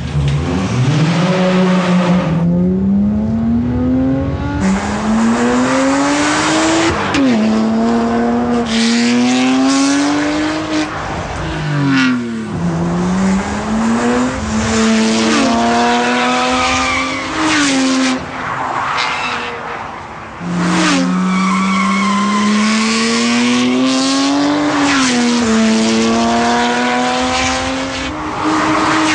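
BMW 1M Coupe's twin-turbo straight-six breathing through an Akrapovic Evolution titanium exhaust, accelerating hard through the gears. The pitch climbs steadily, then drops sharply at each upshift, many times over, with a couple of brief lifts off the throttle.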